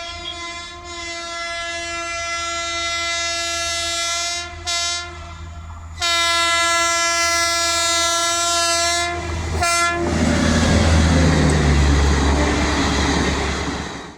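Indian Railways WAP7 electric locomotive sounding its shrill horn: a long blast, a short toot about four and a half seconds in, then another long blast. From about ten seconds in, the train passes close with loud rumbling and wheel clatter, and the sound cuts off suddenly at the end.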